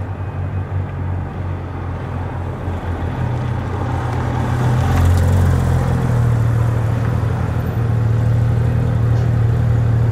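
Porsche 911 GT3 (997) flat-six engine running close by as the car passes, a steady low drone that gets louder about five seconds in and holds.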